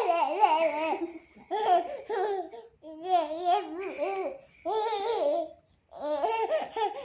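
Toddler laughing and babbling in high-pitched bursts with short pauses between.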